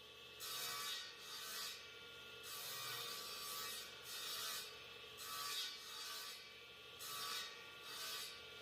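Repeated rough scraping strokes of an abrasive hand tool on wood, about one stroke a second, with material being worked away.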